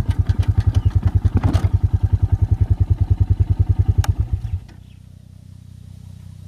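A Honda 400 cc four-stroke quad bike engine idling with an even, rapid pulse, then switched off: a click about four seconds in, and the engine cuts out suddenly, leaving only a faint low hum.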